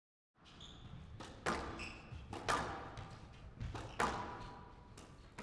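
Squash rally: the ball cracking off rackets and the court walls in a series of sharp hits, the loudest about one and a half, two and a half and four seconds in.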